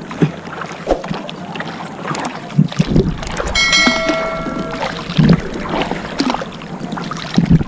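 Hand paddle stroking through seawater beside a small board: irregular splashes and occasional knocks, with wind buffeting the microphone. A little past three and a half seconds in, a ringing chime of a subscribe-button sound effect sounds for about a second.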